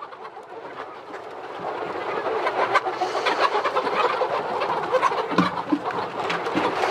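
A large flock of young brown laying hens clucking and calling in a dense chorus that grows louder about two seconds in, as the hungry birds crowd to fresh mash feed. Many short sharp taps run through it.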